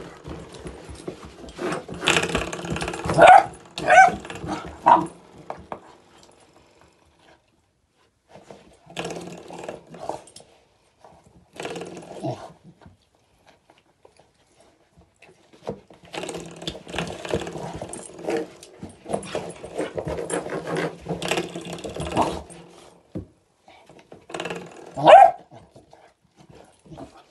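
A spring door stop twanging and rattling in several bursts, with quiet gaps between, as a chocolate working cocker spaniel puppy paws and bites at it, along with a few short sounds from the puppy herself. The loudest twangs come about three seconds in and near the end.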